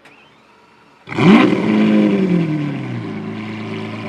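Supercar engine starting up about a second in: it fires, flares to a high rev and drops back to a steady idle.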